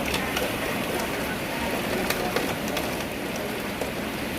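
Steady heavy rain falling, with scattered sharp drips and drop impacts standing out from the constant hiss.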